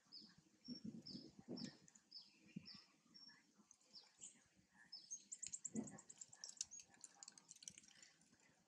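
Birds chirping faintly, a string of short high notes that each fall in pitch, about two a second, breaking into a fast twittering run about five seconds in. Faint low rustles and bumps underneath.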